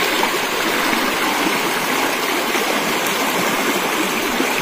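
Shallow, fast river rushing over rocks in a steady, even rush of water.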